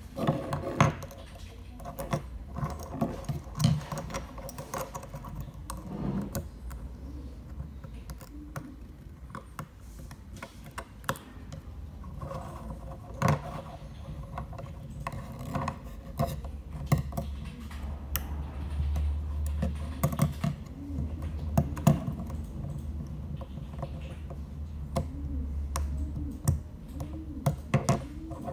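Irregular small clicks, taps and scrapes of metal and plastic parts being handled as a hair-clipper blade set is assembled: springs and the toothed cutting blade being fitted into the plastic blade housing.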